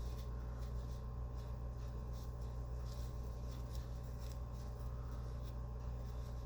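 Quiet rustling and light scattered ticks of fingers being wiped clean, over a steady low electrical hum.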